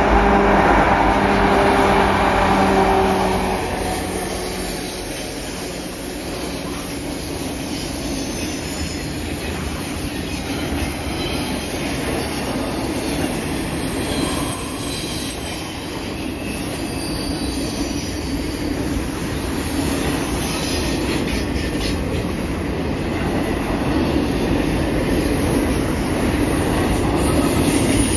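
Diesel locomotives of a CN freight train droning past for the first few seconds, then a long string of double-stacked container well cars rolling by with steady wheel-on-rail noise, clickety-clack and faint high wheel squeals at times.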